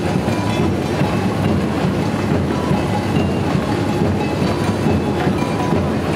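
Samba bateria playing a fast, dense groove: metal chocalho shakers rattling over snare drums and deep surdo bass drums, loud and continuous.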